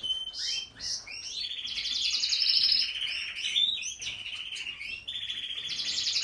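Domestic canary singing: fast trilled rolls strung into phrases, with short quick chirps in between.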